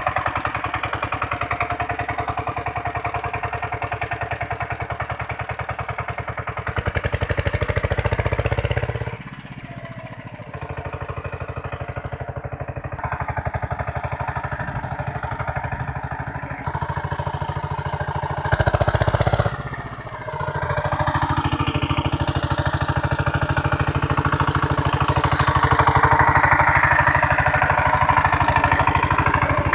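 KAMCO power tiller's single-cylinder diesel engine running steadily with a fast, even firing beat while its rear rotary tiller works the soil. The sound drops for about a second roughly a third of the way in and shifts abruptly in level a few times.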